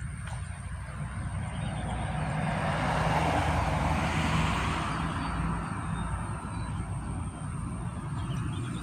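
Road traffic: a passing vehicle whose noise swells to a peak about halfway through and then fades, over a steady low rumble.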